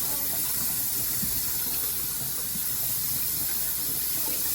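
Kitchen tap running steadily, water hissing into the sink as brine is rinsed off a piece of corned beef.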